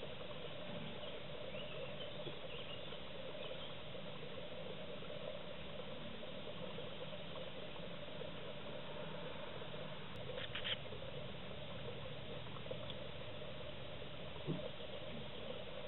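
Faint steady background hiss with light rustling, broken by a few brief clicks about two-thirds of the way through and again near the end.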